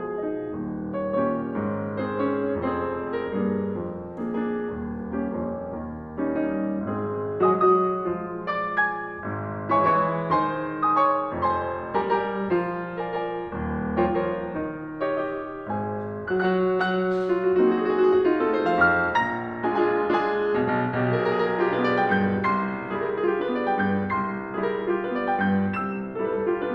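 Background piano music: a flowing piece of many single notes over a bass line, played steadily.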